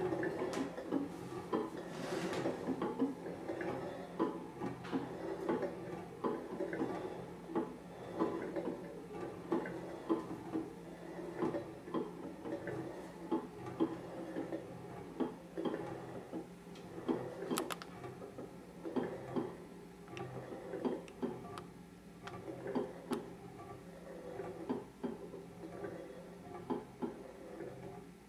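Glass pot lids with steel rims and a stainless steel lid spinning and wobbling on their rims on a wooden tabletop, making a dense, uneven clatter of small clicks and taps. A steady low hum runs underneath.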